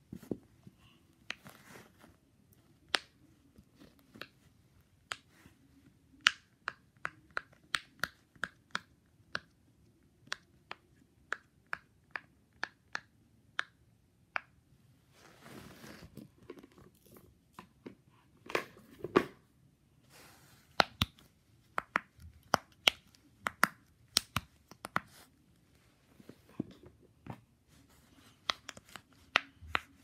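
Fidget toys being pressed and handled: a long run of sharp pops and clicks, for a stretch coming evenly at about two a second, with a short burst of rustling about halfway through.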